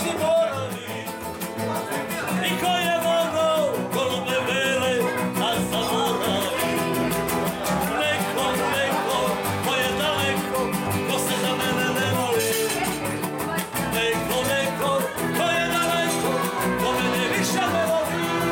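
Acoustic guitar strummed with a man singing along, live music played by a strolling musician.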